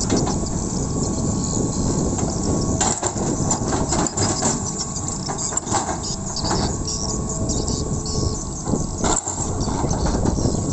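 Hitachi hydraulic crawler excavator's diesel engine running under load as the bucket scrapes and drags loose soil, with several short knocks and scrapes from clods and stones against the bucket.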